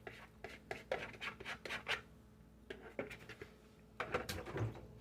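A utensil scraping against a bowl in quick, irregular strokes, scraping beaten eggs out into the pan; the strokes come thick at first, thin out, and pick up again near the end.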